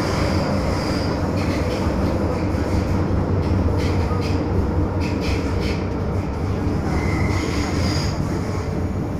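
MTR M-Train carriage running on the track, heard from inside the cabin: a steady low rumble of wheels and running gear. Brief high squeals come in around the first second and again near the end.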